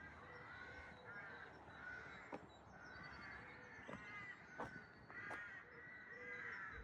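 A flock of crows calling, many short, harsh caws overlapping one after another, with a few soft clicks among them.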